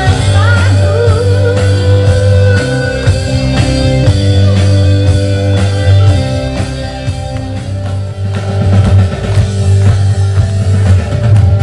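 Loud live band music played through PA speakers, with guitar, drums and heavy bass; a woman's singing voice can be heard near the start.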